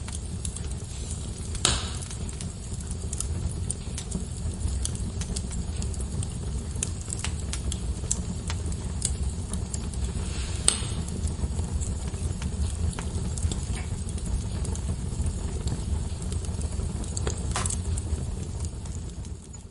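Wood fire burning in a fireplace: a steady low rumble of flames with frequent small crackles and a few louder pops, about two seconds in, near the middle and near the end.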